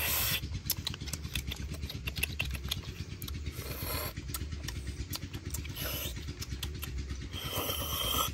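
Eating sounds: a person slurping and sucking at a large cooked bone, with small mouth-smacking clicks and four short slurps a couple of seconds apart. A steady low rumble runs underneath.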